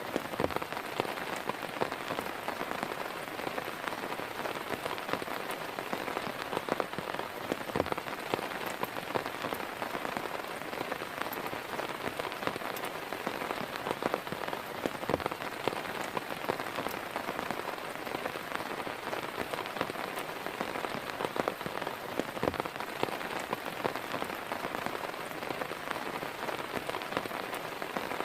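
Heavy rain falling steadily, with many separate drops striking a surface close to the microphone.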